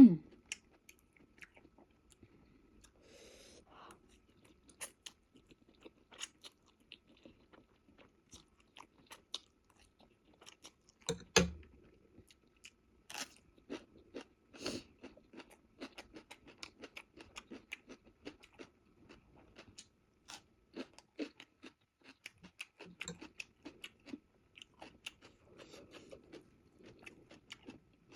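A person chewing and eating spicy ramen noodles close to the microphone: many small, soft clicks of chewing throughout, with a louder knock about eleven seconds in and a couple more a few seconds later.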